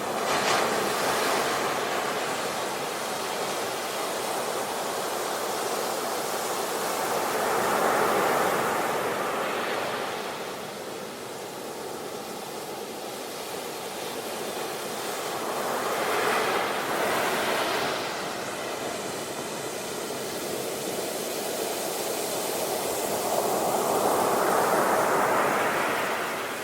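Ocean surf breaking on a beach: the rushing wash swells and fades in four surges about eight seconds apart, each wave breaking and then washing back.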